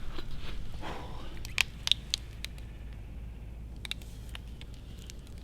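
A scatter of small, sharp clicks between about one and a half and four seconds in, over faint rustling and a low steady hum.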